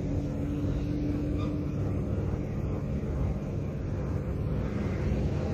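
Steady low rumble of background noise, with faint sounds of a felt-tip marker writing on a whiteboard.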